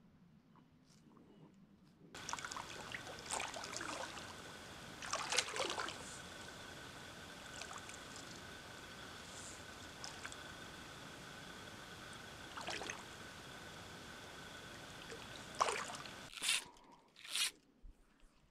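A person wading in shallow pond water: soft sloshes and splashes every few seconds over a steady hiss with a faint high whine. A few short, sharp sounds come near the end.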